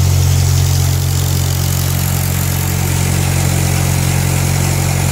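1946 Ford tractor's four-cylinder flathead engine idling steadily, freshly rebuilt with its carburettor and timing newly tuned.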